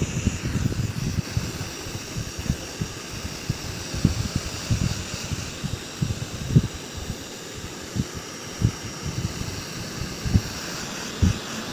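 Handheld heat gun blowing hot air onto a smartphone's back cover to soften its adhesive: a steady fan whine and hiss, with irregular low thumps of air buffeting the microphone.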